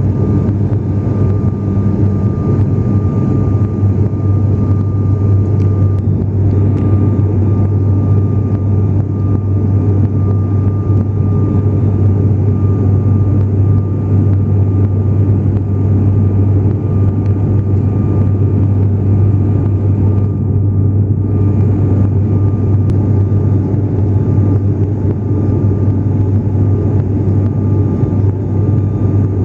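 Cabin drone of an ATR turboprop airliner in flight: a steady low propeller hum with a faint, even whine above it.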